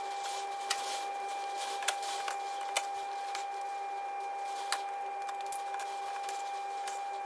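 Milwaukee 3/8-inch cordless mini impact driver running on the Torx screws of a plastic engine undertray: a steady high whine with scattered sharp clicks.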